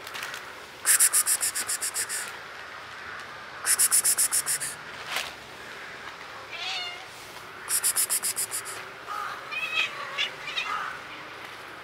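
Cats meowing, several short high calls late on, with three louder bursts of rapid, very high-pitched chattering about a second in, near four seconds and near eight seconds.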